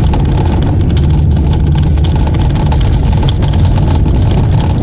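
Small car driving on an unsealed gravel road, heard from inside the cabin: a steady, loud low rumble of tyres and engine, with scattered sharp clicks of stones flicking against the underside.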